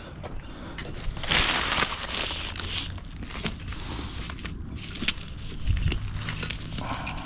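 Synthetic turf being handled by hand: a scraping rustle lasting about a second and a half, starting about a second in, then scattered clicks and knocks.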